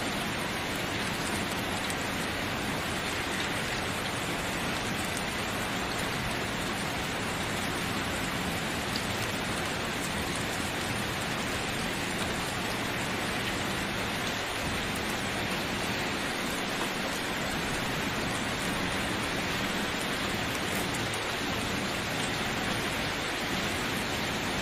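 Steady rain falling, an even hiss of many raindrops on a surface.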